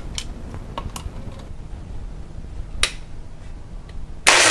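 A few light plastic clicks and taps as a personal blender's jar, packed with watermelon pieces, is handled and set onto its motor base, with a sharper click a little before 3 seconds. Near the end the blender motor starts loudly and runs steadily, blending the watermelon juice.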